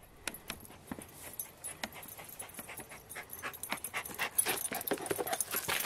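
Dog panting in short, quick breaths, getting louder near the end.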